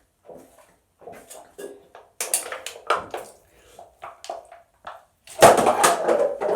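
A can of LaCroix sparkling water being shotgunned: a run of short, irregular gulping and sloshing sounds, then a louder, longer noisy stretch about five seconds in.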